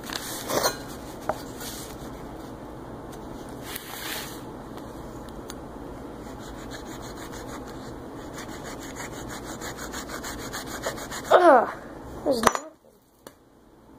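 A small knife sawing and scraping steadily through a tampon's cotton wadding and casing against a wooden board, with a few clicks at the start. A little before the end come two short falling squeaky sounds, then the sound cuts out.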